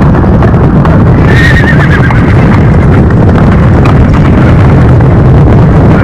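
A group of horses galloping, their hooves drumming in a dense, continuous beat on dry ground, with one horse whinnying about a second in.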